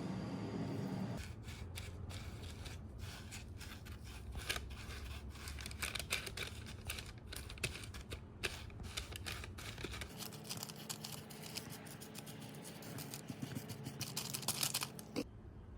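Crackling and crunching of dark chocolate filled with crispy butter-toasted kataifi and pistachio, a dense run of small irregular crackles that starts about a second in, grows louder near the end and then stops.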